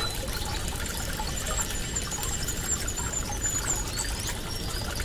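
Wood fire burning in a Solo Stove Campfire wood-gas stove, crackling steadily with many small scattered pops.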